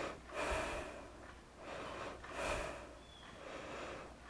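A woman breathing hard through exertion, with short, forceful breaths about every two seconds.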